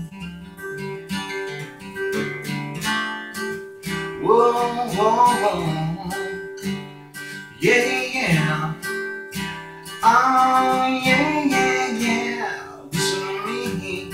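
Gibson acoustic guitar strummed in a steady rhythm, with heavier strums about 8 and 10 seconds in.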